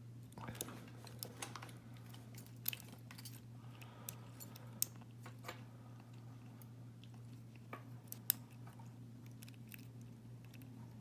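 Faint, irregular small clicks and scrapes of a lock pick working the pins inside a Winkhaus half euro cylinder, with a few sharper clicks, over a steady low hum.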